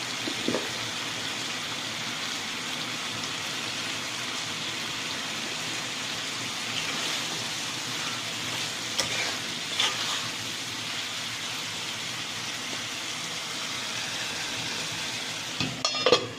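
Food sizzling steadily in a frying pan, with a few brief knocks of a utensil against the pan, several of them close together near the end.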